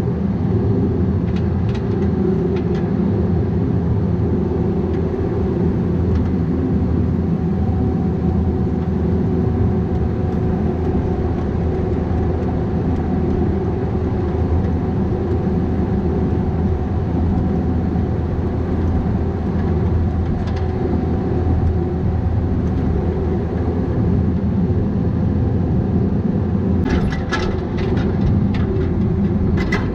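The diesel engine of a Bobcat 337G mini excavator running steadily at working speed. Near the end comes a quick run of sharp clanks and knocks.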